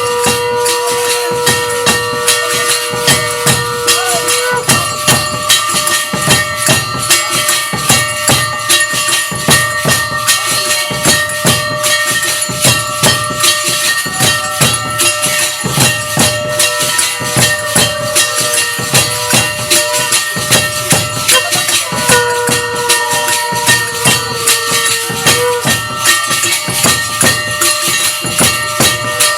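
Temple aarti music: rhythmic, jingling percussion keeping a steady beat about twice a second over a continuous ringing. A long held tone sounds near the start and again past the middle.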